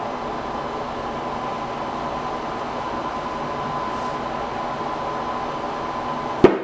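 A steady mechanical hum carrying a faint high tone. Near the end, a single sharp impact: the tablet in its protective case hitting the floor in a one-metre drop test.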